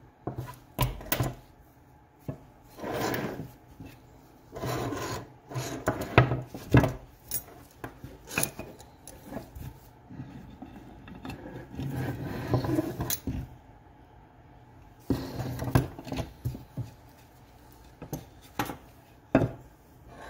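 Metal parts of a buck saw, its tension rod, turnbuckle and wire hooks, being handled and fitted against a wooden frame arm on a wooden workbench: sharp clinks and knocks mixed with short stretches of scraping and rubbing.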